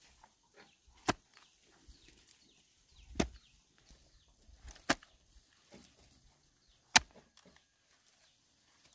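Garden hoe chopping into soil: four sharp strikes about two seconds apart, with faint scraping between.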